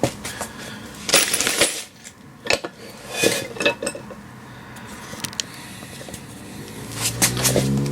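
Metal tools and parts clinking against each other, several short ringing clanks, during work on a hub puller. Near the end a low engine hum rises in pitch.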